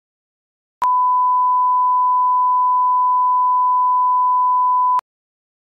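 Broadcast line-up reference tone, a single steady 1 kHz sine tone played with SMPTE colour bars. It switches on abruptly about a second in, holds for about four seconds, and cuts off abruptly near the end.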